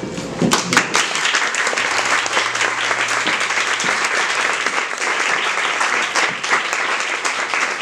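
Audience applauding: a few sharp claps about half a second in, then steady clapping from many hands.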